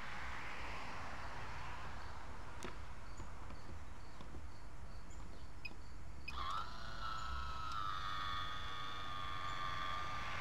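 Outdoor ambience with a low rumble, then about six seconds in a MaxxFan roof vent's small electric motor starts with a short rising whine and runs on as a steady whine while the vent lid lifts open.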